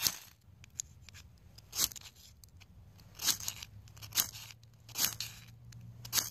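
Steel striker scraped down the ferrocerium rod of a Lightning Strike fire starter six times, short sharp scrapes about a second apart, the first the loudest. Each strike throws sparks at a fire-square tinder, and the strikes keep coming because the tinder has not yet caught.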